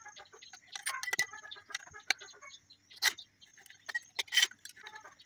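Submersible pump stages (impellers and diffusers) clicking and knocking against each other and the shaft as they are stacked by hand: a handful of irregular sharp taps, the loudest near the end.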